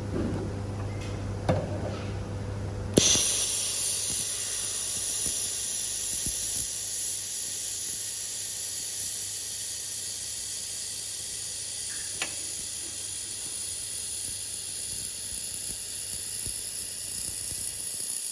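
2000 W handheld laser welder welding 6 mm mild steel without filler wire: a steady, loud hiss that starts abruptly about three seconds in and stops at the very end. Before it, a low machine hum and a few clicks.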